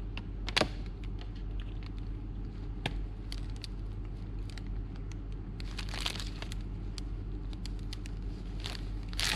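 Scattered clicks and rustling as a power cord and plug are handled and plugged into a socket, the sharpest click about half a second in, over a steady low hum.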